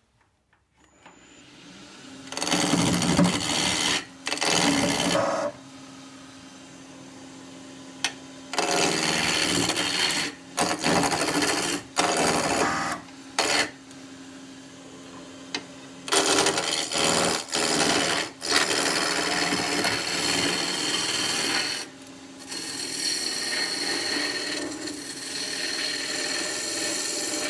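A wood lathe spins up about half a second in, then a continental roughing gouge cuts a square radiata pine blank toward round in repeated passes of a second to three seconds each. The lathe hums steadily between passes. The gouge is taking a shear cut.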